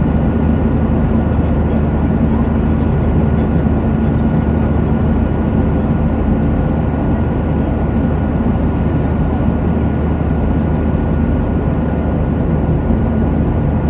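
Steady cabin drone of a passenger airplane in flight: engine and airflow noise, with a low hum and a fainter high tone held steady within it.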